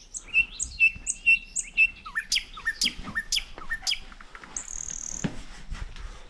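Birds chirping and singing: a short chirp repeated about twice a second, then a run of quicker falling notes, and a brief high thin note about five seconds in.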